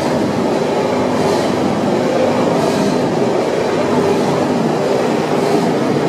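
Machinery of a charcoal carbonization line running, the screw feeder and furnace drive: a loud, steady mechanical rumble with a faint hiss that comes back about every second and a half.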